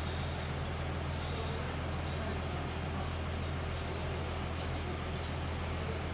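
Steady low mechanical hum over a constant hiss of outdoor background noise.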